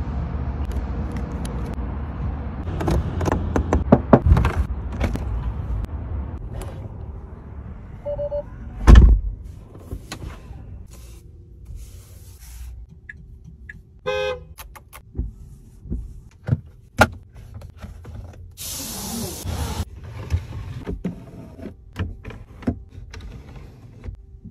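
Tesla Model X working sounds in a sequence of clicks and knocks, with a loud thump about nine seconds in and a stretch of hiss near twenty seconds.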